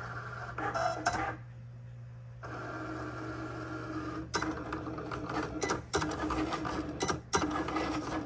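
Cricut cutting machine starting to cut stencil vinyl: its motors whir as the blade carriage travels and the rollers feed the mat. A short burst of movement comes about a second in, then a pause, then steady whirring from about two and a half seconds in, broken by several brief stops and clicks.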